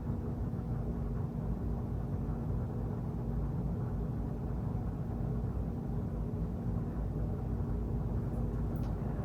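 Steady low rumble with a faint constant hum and no distinct events.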